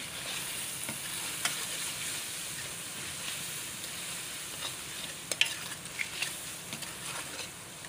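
Bitter gourd, onion and green chilli masala sizzling in hot oil in a metal wok while a spoon stirs in freshly added powdered spices. A few sharp clicks and scrapes of the spoon against the pan break through the steady sizzle.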